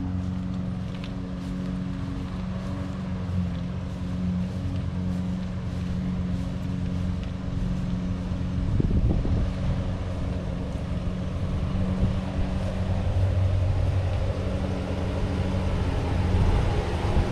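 Ram 1500 pickup's engine idling steadily, a low even hum that gets louder toward the end.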